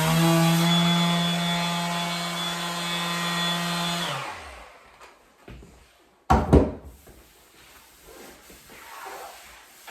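Electric sander running on a wooden butcher-block countertop, a steady motor whine that is switched off about four seconds in and winds down. A single loud knock follows about two seconds later.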